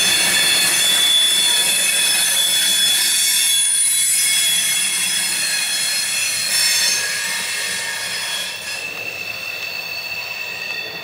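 Freight train's tank cars and covered hopper rolling past, their wheels squealing in several high steady tones over the hiss of steel wheels on rail. The sound fades from about two-thirds of the way through as the end of the train moves away.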